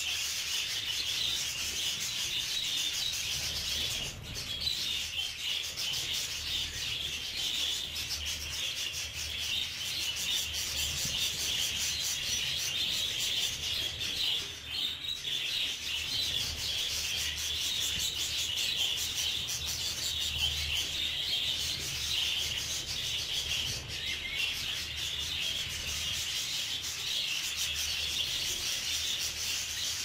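A flock of budgerigars chattering and warbling nonstop, many birds at once, making a dense, busy twittering with no pauses.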